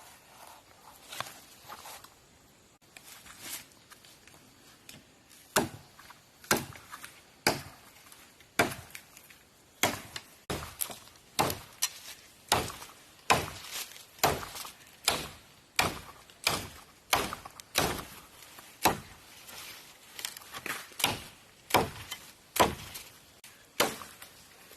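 Wood being chopped with a hand blade: a long run of sharp, regular blows, about two a second, beginning about five seconds in after some faint rustling.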